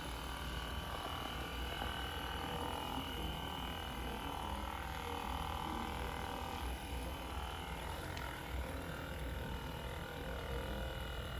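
Hypervolt percussion massage gun running steadily: a low, even hum with a faint high whine above it.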